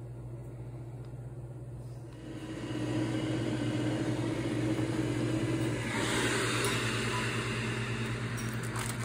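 Ninja indoor grill and air fryer running after preheating to 390°F, its fan giving a steady hum. The hum grows louder about two seconds in, and a broader airy rush joins about six seconds in.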